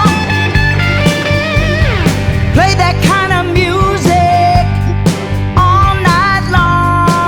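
Blues-rock instrumental passage: a lead electric guitar plays bent notes with wide vibrato, including one long downward slide, over a steady bass line and drums.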